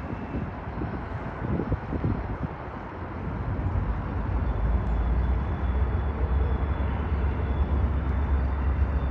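Low, steady rumble of an approaching EMD diesel freight locomotive heard at a distance, growing louder a few seconds in.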